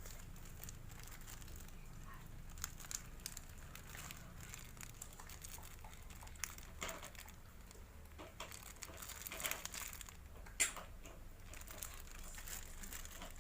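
Faint crinkling and rustling of a parcel's plastic packaging being opened and handled, with scattered small clicks and crackles.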